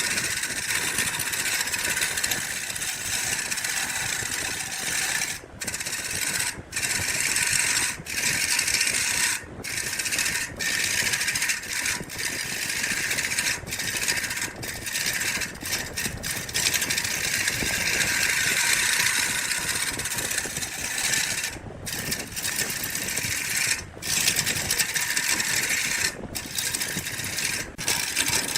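A power tool working wood, running with a steady hissing grind. It breaks off for a moment about a dozen times at uneven intervals.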